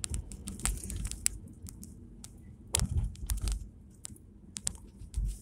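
Low rumble of a car driving slowly, heard from inside the cabin, with irregular sharp clicks and crackles throughout.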